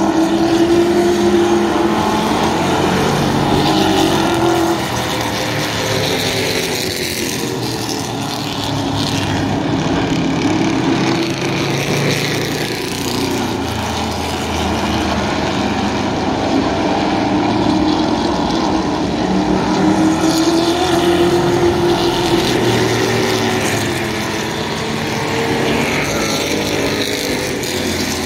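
Field of vintage stock cars, V8s and inline-sixes, racing around a short oval. Their engines run continuously, and the engine note rises and falls as cars pass and accelerate out of the turns.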